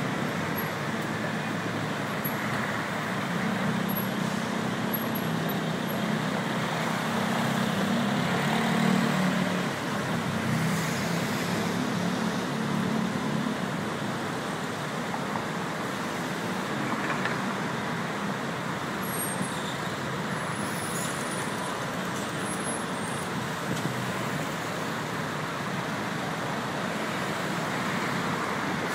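Dense rush-hour road traffic: a steady wash of engines and tyres, with a heavier engine's low hum standing out from a few seconds in until about halfway through.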